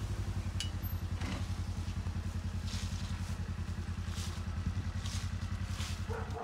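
Vehicle engine idling with a steady low throb that cuts off abruptly at the end. Light crunching rustles over it, like footsteps in dry leaves.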